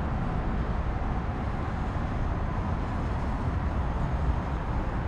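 Steady low rumble of traffic on the elevated overpasses overhead, with no distinct separate events.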